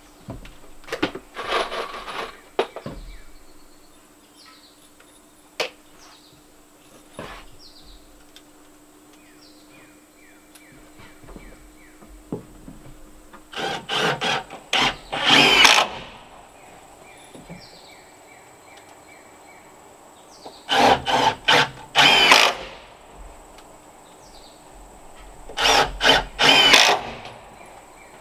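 Cordless drill driving screws into the wooden cabinet frame, in four runs of a couple of seconds each with long pauses between.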